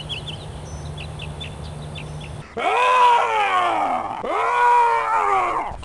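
Two long, loud wailing cries, each rising and then falling in pitch, start about two and a half seconds in. Before them, short high chirps sound over a steady low hum.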